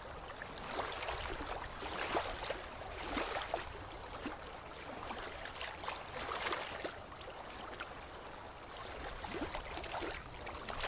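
Water trickling and lapping, with many small irregular splashes and gurgles.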